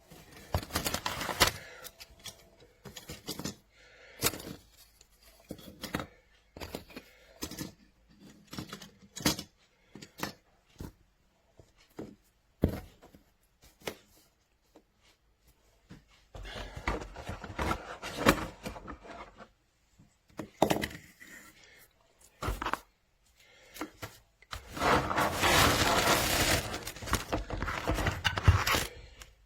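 Irregular handling noises: clicks, knocks and scrapes, with two longer spells of rustling-like noise, one about halfway through and a louder one near the end. No steady motor hum, so the clippers are not running.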